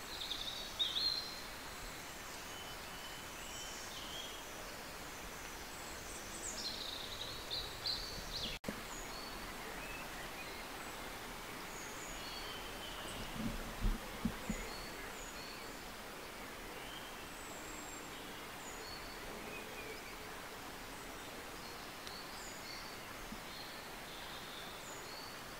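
Great tit chicks in a nest box giving faint, short, high-pitched cheeps over a steady hiss. A few soft thumps come about halfway through as the chicks shift and stretch in the box.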